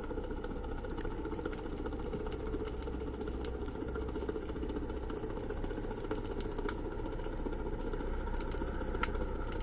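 Steady low motor-like hum picked up by an underwater camera's microphone, with a few faint clicks.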